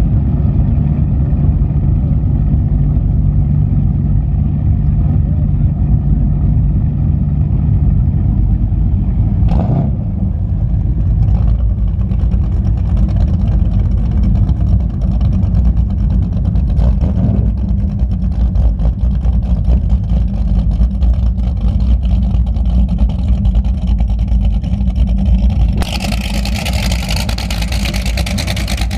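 High-performance powerboat engines idling and running at low speed, a deep steady rumble. A hiss joins in near the end.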